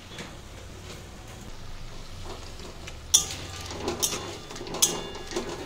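A faint low hum, then from about three seconds in a metal spatula scraping and knocking against a steel kadai as chopped leafy greens are stirred: several sharp scrapes, each with a short metallic ring.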